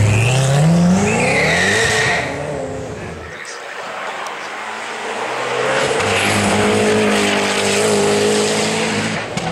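Koenigsegg twin-turbo V8 revving hard as the car accelerates away, its pitch climbing steeply, with a brief tyre squeal near two seconds in. After a cut, a Koenigsegg V8 is heard further off, accelerating up the hill climb with its pitch rising.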